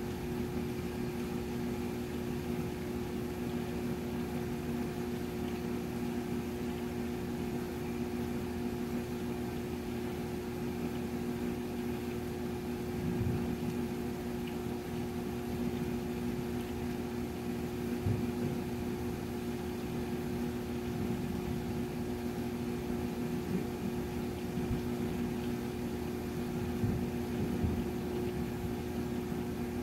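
A steady low mechanical hum holding two tones, over a rumbling low noise, with a few faint low thumps.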